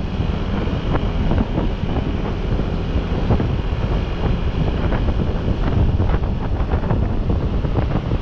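Heavy wind buffeting the microphone: a steady low rumble with irregular crackling gusts, as from riding in open air at speed.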